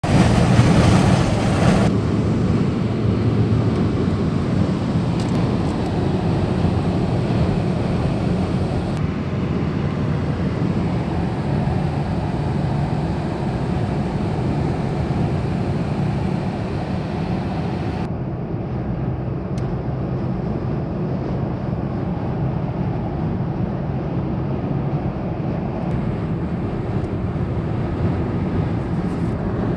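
Steady road and engine noise heard inside a car's cabin while driving on a motorway, a low rumble. The higher hiss drops away abruptly a few times.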